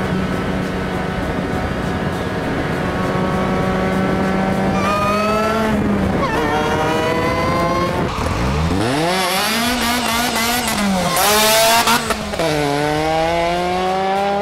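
Ariel Atom's Chevy Cobalt four-cylinder engine under way, its pitch holding steady, then climbing as it revs. From about halfway it sweeps up from low, rises and falls through hard acceleration, with a brief loud hiss about three-quarters through, then drops and climbs again.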